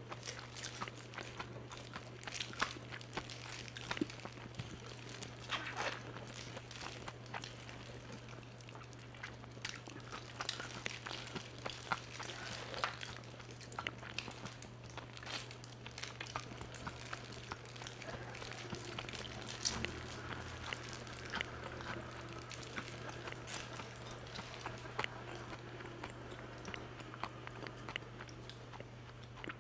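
Close-up eating of crispy fried chicken: irregular crunching bites and chewing of the crackly breaded coating, over a steady low hum.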